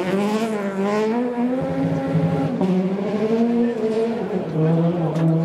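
Peugeot 208 rally car's engine revving hard through a bend, its note rising at the start, then dipping about two and a half seconds in and climbing again as the throttle is worked.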